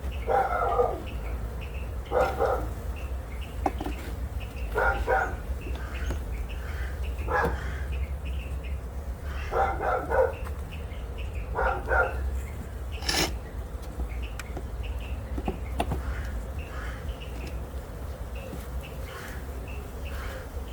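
A dog barking in short runs, one run about every two to three seconds, over a steady low rumble. There is one sharp knock a little past the middle.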